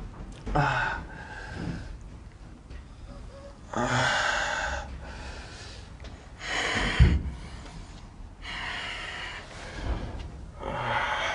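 A person breathing hard close to the microphone: about five loud gasps and exhalations a second or two apart, with a low thump about seven seconds in.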